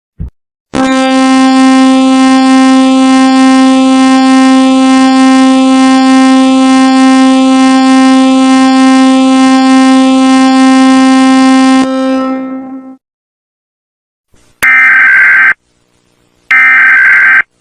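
Fan-made emergency alert (EAS-style) alarm sounding a flash flood warning. A loud, steady, buzzing horn-like tone holds for about eleven seconds and then fades out. After a short silence come two short, higher-pitched alert beeps near the end.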